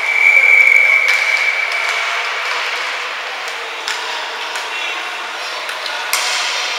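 Referee's whistle blown once at an ice hockey game, one steady shrill blast that fades over about two seconds. It is followed by a few sharp knocks.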